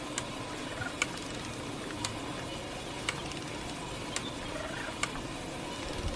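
Light, sharp clicks about once a second over a steady low hiss.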